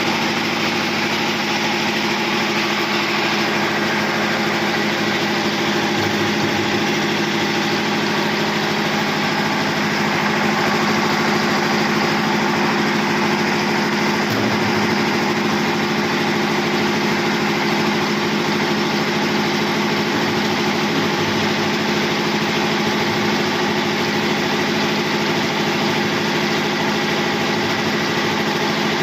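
An engine running steadily, a constant unchanging hum.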